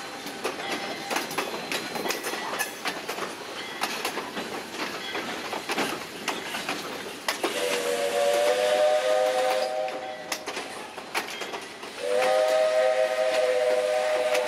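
Passenger coaches rolling past, their wheels clicking over the rail joints. The steam locomotive's whistle then blows two long blasts, sounding several notes at once: one about halfway through and a second near the end.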